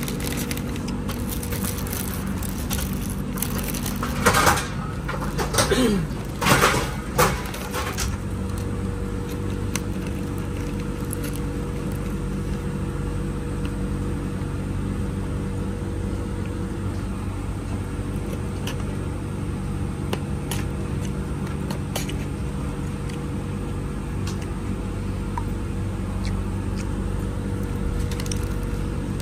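Steady low hum inside a train carriage. About four seconds in, a few seconds of loud crinkling and rustling as plastic and paper food wrapping is torn open and unwrapped.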